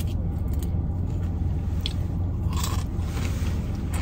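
Steady low hum of a car, heard inside the cabin, with faint crunching and rustling as rice chips are eaten, briefly louder about two and a half seconds in.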